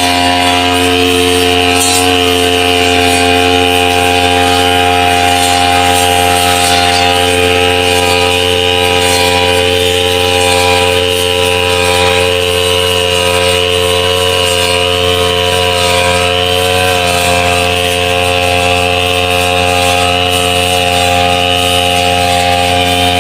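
Brush cutter's small petrol engine running steadily, holding one speed throughout.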